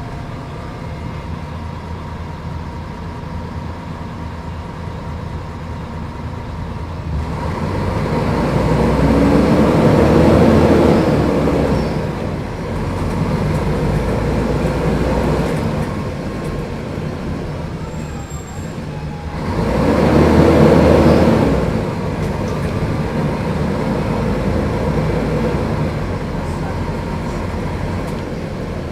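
Mercedes-Benz O500UDA bus's diesel engine running as the bus drives, with steady road and running noise. It pulls harder twice, about eight and twenty seconds in, and each time the engine note swells, rising and then falling away.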